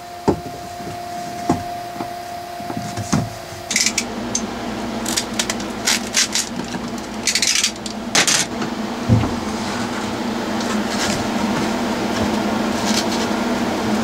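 Rubbing, rustling and light knocks as a white compartment lid and a length of black foam tubing are worked into place around thick battery cables. A steady mechanical hum sets in about four seconds in and continues under the handling noises.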